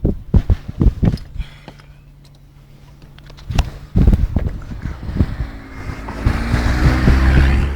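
Gusting wind from a dust storm buffeting the microphone. There are sharp knocks in the first second and two more about four seconds in, and a heavy low rumble builds near the end.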